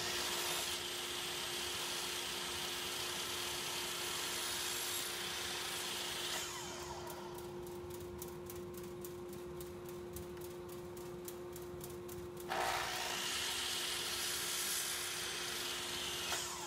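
Electric miter saw running steadily, its blade cutting off a lip of patch wood on a tapered chair leg. The cutting is loudest for the first six seconds or so and again from about twelve and a half seconds in; in between the blade spins with a quieter, rapid ticking.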